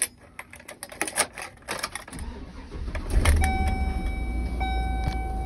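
Keys jingling and clicking in the ignition of a U-Haul moving truck, then the engine cranks and starts about three seconds in and settles into a steady idle. A steady dashboard warning tone sounds over the idle, breaking off briefly once.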